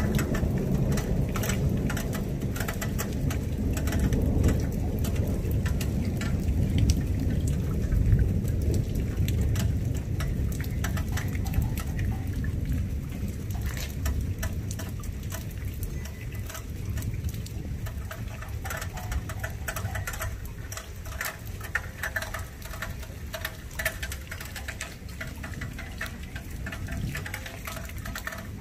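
Heavy rain falling in a thunderstorm, with thunder rumbling low. The rumble is strongest over the first dozen seconds and then fades, leaving close rain pattering and dripping with many sharp ticks.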